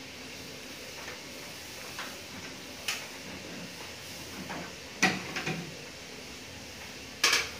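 Sharp clicks and knocks of plastic and metal parts being handled in an opened ceiling cassette air-conditioner indoor unit. There are a few single knocks, the loudest about five seconds in, and a quick cluster near the end, over steady background noise.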